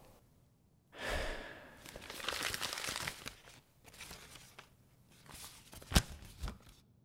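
A man's long, distressed sigh, then a handwritten paper letter rustling and crinkling as it is turned over in his hands, with a few sharp crackles near the end.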